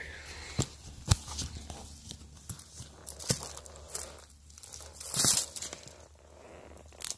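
Footsteps crunching and rustling over dry, burned ground and charred debris, with scattered crackles and a louder rustle about five seconds in.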